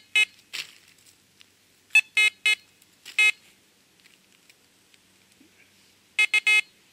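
Fisher F44 metal detector giving short pitched beeps in quick groups (two, then four, then three) as handfuls of soil are passed over its search coil, signalling the metal target in the dirt, a piece of chain. Faint crumbling of soil between the beeps.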